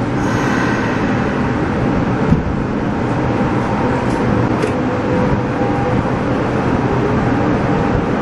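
Subway train pulling out of a station and running into the tunnel: steady rumble of wheels on rail with a faint electric motor whine, heard from inside the driver's cab.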